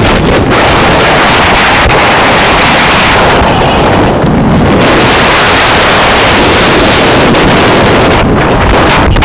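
Loud, steady wind rushing over and buffeting the microphone of a camera on a bike riding downhill at speed.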